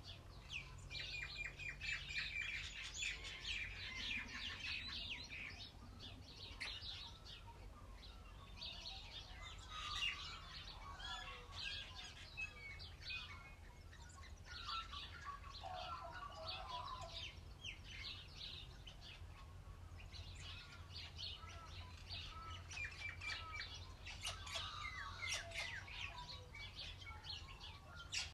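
Several wild birds chirping and trilling, many short overlapping calls in clusters with brief lulls, over a faint steady low rumble of outdoor background noise.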